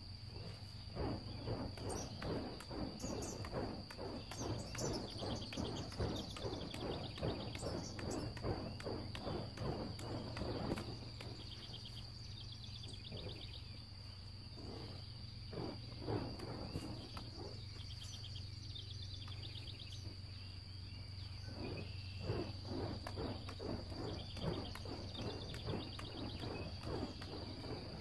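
Outdoor field ambience: a steady high insect drone over a low hum, with stretches of quick, rapid chirping from birds that come and go.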